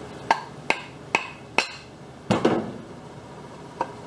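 Four quick blows of a rubber mallet on a mower deck spindle assembly, about two a second, as a part is driven into place. They are followed by a heavier double clunk and one light click near the end.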